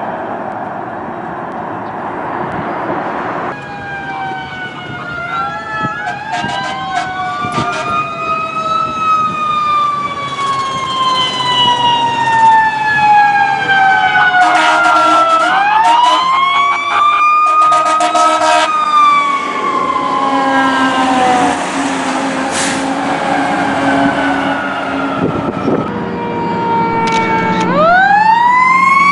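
Emergency vehicle sirens wailing, several overlapping, each rising quickly and then falling slowly, starting a few seconds in over a steady traffic-like rumble. A couple of short blaring blasts come around the middle.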